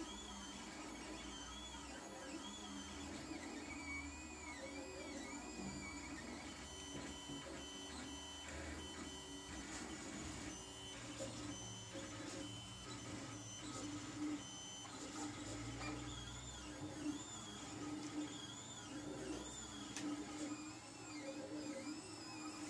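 LulzBot TAZ 3 3D printer printing, its stepper motors whining in rising and falling arcs of pitch as the print head traces curves. In the middle come stretches of short, steady, broken tones, over a steady low hum.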